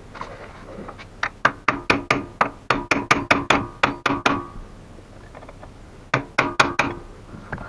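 Hammer striking a chisel to stake (center-punch) the gearbox shaft nut into the shaft's groove, locking it: a quick series of sharp metal blows with a metallic ring, then a few more near the end.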